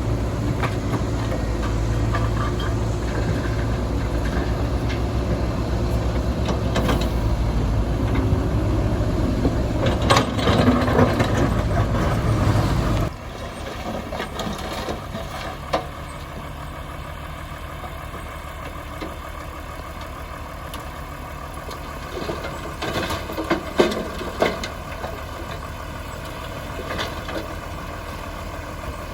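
Heavy diesel construction machinery running under load, with clattering and metallic knocks. About halfway through the sound drops abruptly to a quieter steady engine with occasional clanks.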